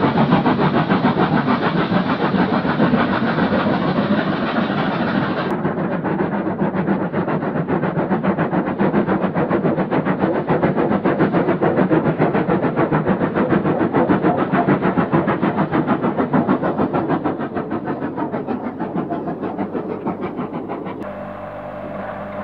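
Steam train on the move, sounding as a dense, loud noise with fast, even beating: NSWGR 35 class steam locomotives working a double-headed train. The sound changes abruptly about five seconds in and grows quieter near the end, where a steady hum comes in.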